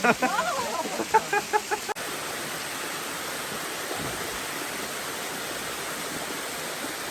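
Steady rush of falling water from a small waterfall. For the first two seconds a voice exclaims and then laughs in a short run of even pulses, cutting off abruptly, leaving only the water.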